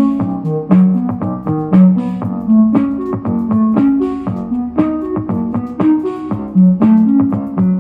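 Instrumental keyboard music with a steady beat, played through the Art+Sound Chromabeat Bluetooth tube speaker, a cheap portable speaker.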